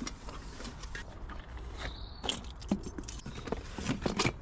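Items being rummaged through and knocked together in a cardboard box: scattered clicks, rustles and light knocks, the sharpest about two seconds in and near the end.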